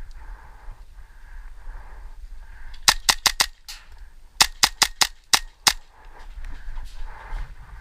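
Airsoft gun firing two quick volleys of sharp snapping shots: about four in rapid succession, then after a one-second pause about six or seven more.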